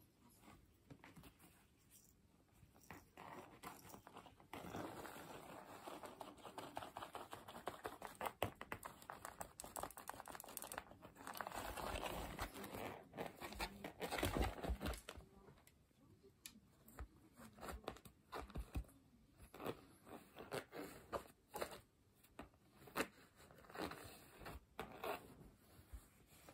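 A cat scrabbling and sliding against a cloth floor cushion on tatami: fabric rustling and claws scratching. The first half is a long, dense stretch of rustling; after that come short, separate scratches and scuffs.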